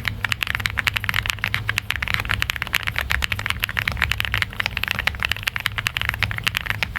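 Fast, continuous typing on a mechanical keyboard fitted with thick 1.5 mm PBT dye-sublimated cherry-profile keycaps: a steady clatter of many keystrokes a second.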